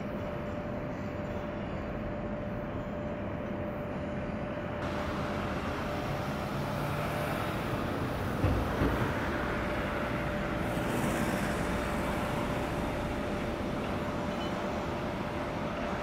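Shipyard work noise: a steady machinery hum carrying a constant pitched tone, with two sharp knocks a little past halfway through.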